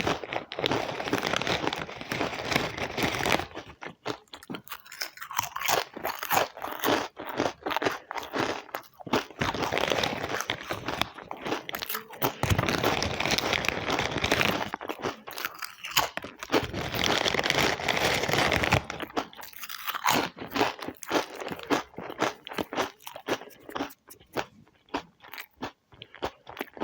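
Potato chips being crunched and chewed, close up. Dense stretches of continuous crackling a few seconds long alternate with sparser separate crunches.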